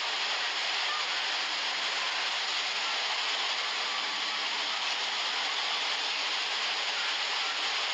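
Muddy lahar floodwater rushing in a torrent under heavy rain: a steady, dense rushing hiss with no breaks.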